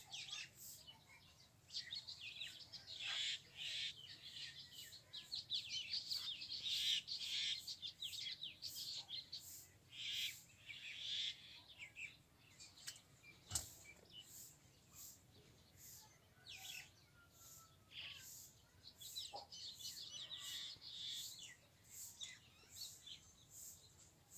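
Small birds chirping and twittering in quick, overlapping high-pitched calls, busiest in the first half, with a single sharp click about halfway through.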